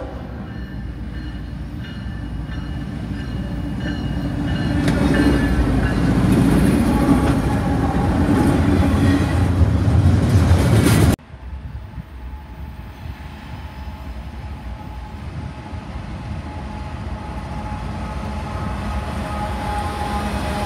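Norfolk Southern freight train with GE diesel-electric locomotives approaching and passing at speed: engine and wheel rumble building to its loudest about five to eleven seconds in. It cuts off abruptly, then a second pass follows, an AC44C6M locomotive rolling by close with a steadier, quieter engine and wheel rumble that slowly grows.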